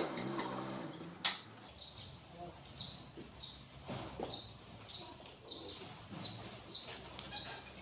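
A bird chirping over and over, short falling notes about twice a second. At the start a running engine hum dies away, and there is a single sharp knock about a second in.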